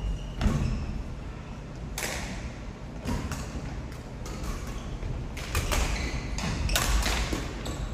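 Badminton rackets striking shuttlecocks: a run of sharp hits at irregular intervals, a dozen or so, some in quick succession, each echoing briefly in the hall.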